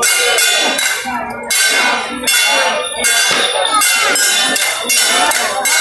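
Temple-procession gongs and hand cymbals struck in a steady, repeating beat, each stroke ringing on with a bright metallic shimmer.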